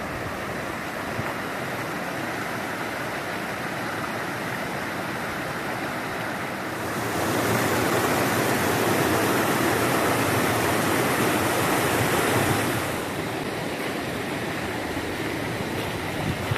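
Rushing water of a mountain stream and waterfall: a steady roar that swells louder about seven seconds in and eases back down about six seconds later.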